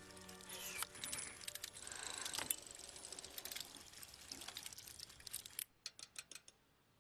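Clockwork mechanism of a writing automaton whirring into motion, its metal gears clicking and rattling, and ending in a quick run of about six sharp clicks. A held music chord fades out in the first second.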